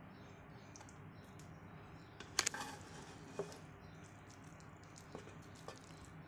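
Spoon fluffing cooked biryani rice in a pot: faint soft rustling, with a few light knocks of the spoon against the pot, the clearest about two and a half seconds in.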